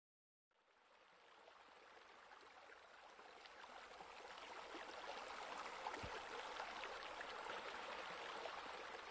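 Steady splashing and gurgling of running water, fading in during the first second and growing slowly louder.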